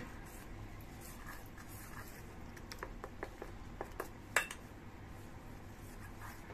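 Metal spoon stirring thin flour-and-water batter in a steel bowl: a soft wet stirring with irregular light clinks of spoon on bowl, the loudest about four seconds in.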